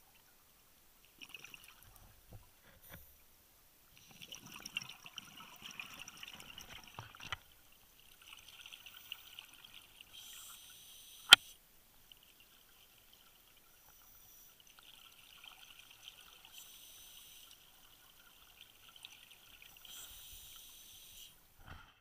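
Scuba diver breathing underwater through a regulator: rushes of exhaled bubbles in spells of a few seconds, with one sharp click, the loudest sound, about eleven seconds in.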